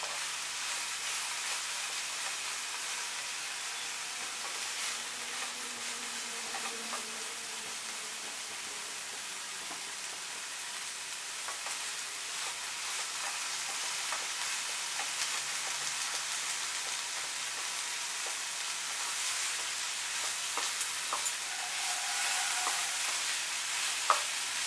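Star fruit slices sizzling in oil in a non-stick frying pan, stirred with a wooden spatula that scrapes and taps against the pan now and then.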